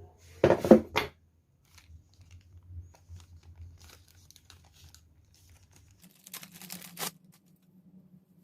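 Rustling and crinkling handling noise with small clicks: a short loud burst about half a second in, scattered clicks, and a second burst near the end.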